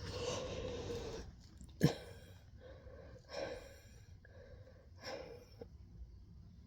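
A person's long, noisy yawning breath with a faint voiced tone, then a sharp click about two seconds in and two shorter breaths, part of a fit of uncontrollable yawning.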